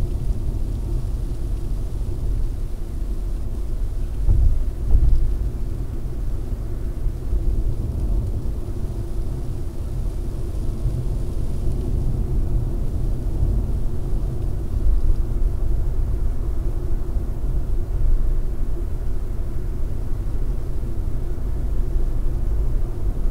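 Steady low rumble of a car's tyre and road noise at about 80 km/h, heard from inside the cabin through a dashcam microphone, with a few louder bumps about four to five seconds in.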